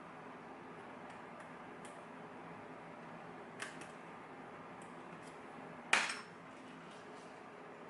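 Faint metallic ticks and clicks of lock picking tools working in a lock, with a sharper metal clink about six seconds in.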